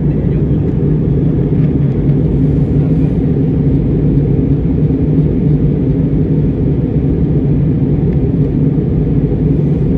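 Steady low rumble of an airliner's cabin on approach to landing: jet engine and airflow noise heard inside the cabin, even and unchanging.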